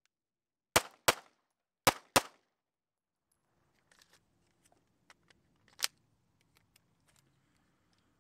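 Taurus G3 9mm pistol fired four times as two quick pairs, the shots in each pair about a third of a second apart. Then faint clicks of the pistol being handled, with one sharper click near the middle.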